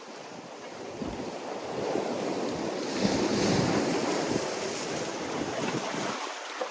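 Sea waves breaking and surging on the shore, with wind buffeting the microphone. The noise swells to a peak about halfway through, then eases off.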